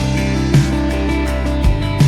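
Background music: a guitar-led track with a steady bass and a regular beat.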